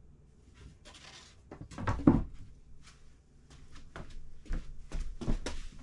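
A wooden 2x4 board being lifted off a desk and set down, giving a string of knocks and clunks, the loudest a dull thump about two seconds in, followed by several lighter knocks.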